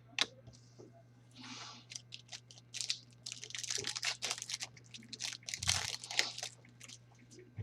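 Crinkling and tearing of a trading-card pack wrapper as a pack is opened, in a string of irregular crackles and rustles.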